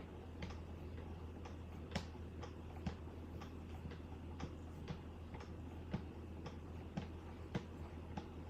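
Light ticks and clicks, roughly two a second, from stropping a knife on a Wicked Edge guided sharpener: 2-micron loaded strops on guide rods drawn up the edge in light upward strokes, over a steady low electrical hum.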